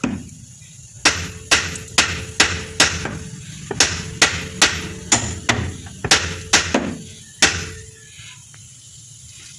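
A hammer striking steel about thirteen times, roughly two blows a second, with a metallic ring under the blows, knocking the front drive axle loose from the spindle. The blows stop about seven and a half seconds in.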